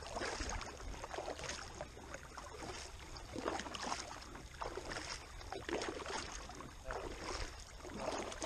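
Kayak paddle strokes: the blades of a double-bladed paddle dipping and pulling through calm water, with splashes and drips repeating about once a second.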